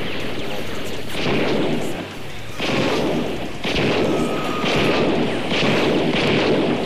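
Gunfire sound effects: about five heavy shots roughly a second apart, each with a long noisy tail, over music.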